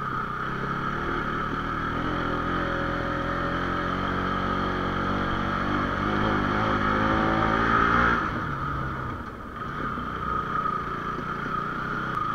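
Bajaj Pulsar 220's single-cylinder engine pulling the motorcycle uphill on a rough dirt track, its note rising gradually under load. It eases off about eight seconds in, dips briefly, then picks up again.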